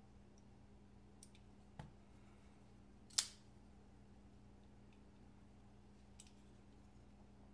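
A few short, sharp metallic clicks from a folding knife's small parts being handled during reassembly, the loudest about three seconds in, over a faint steady hum.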